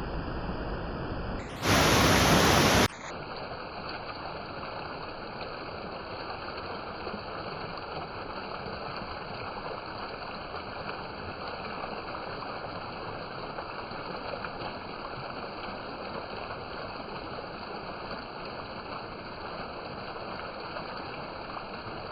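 Steady rushing of falling water from a waterfall. About two seconds in, a much louder, hissier rush of water lasts for just over a second, then the steadier, softer rush returns.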